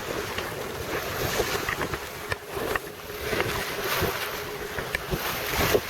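Wind buffeting the microphone over the rush of sea water along a small sailboat's hull, sailing under jib and reefed main with no engine running, with a few sharp knocks.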